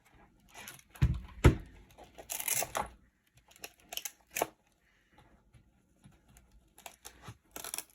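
Handling noise as a mechanical keyboard is fitted into a carrying case: scattered clicks, knocks and short rustles, with a heavy thump about a second and a half in.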